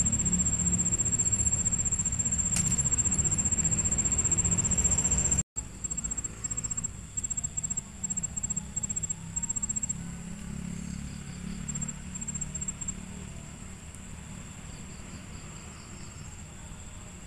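High-pitched insect song, a thin steady trill that after about five seconds breaks into short repeated chirps, over a low rumble that is louder in the first half.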